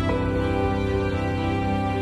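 Slow instrumental background music of long held notes over a low drone.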